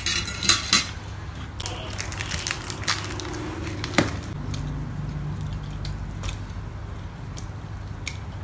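Metal forks clicking and scraping against plates and dishes while several people eat, in scattered sharp clicks over a steady low hum.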